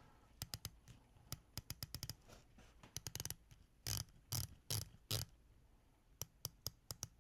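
Rotating dive-watch bezel of a Helm Komodo being turned by hand: quiet, sharp ratcheting clicks in uneven runs, with four louder, more spaced clicks about halfway through. The clicks sound a little lackluster and kind of cheap.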